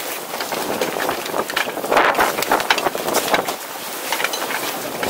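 Steady rush of wind and water on a sailing ship's deck, with scattered sharp clicks and knocks throughout.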